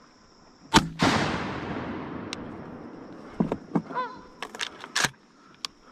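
A single shotgun shot about a second in, its report rolling away for a couple of seconds. Near four seconds a Canada goose honks, among a few light knocks.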